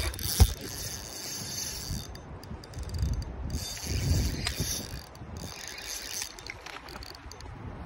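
Fishing reel being cranked in two stretches of whirring, with a sharp click about half a second in.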